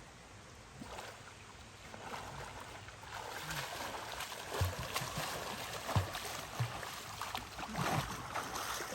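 River water rushing and splashing, getting louder about three seconds in, with a few low thumps.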